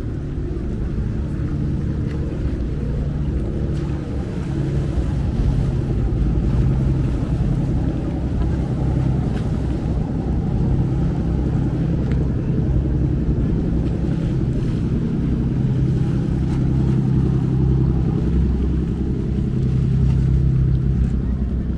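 Motorboat engine running steadily: a low, even hum.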